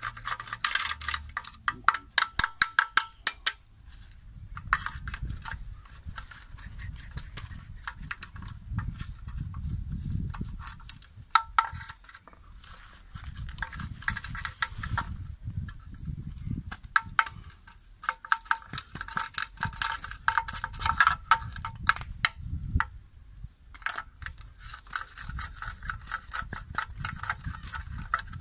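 Ratchet wrench clicking in quick runs with pauses between, as the oil sump pan bolts are undone. A low rumble runs underneath.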